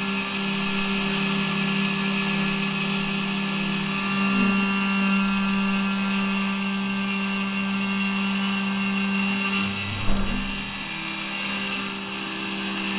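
Benchtop CNC milling machine's spindle running with a steady whine while its end mill cuts aluminium. A short thump comes about ten seconds in.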